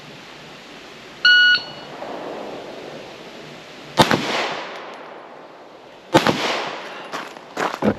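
An electronic shot timer gives one short beep, then a Glock 19 9mm pistol fires two shots about two seconds apart, each trailed by a short echo.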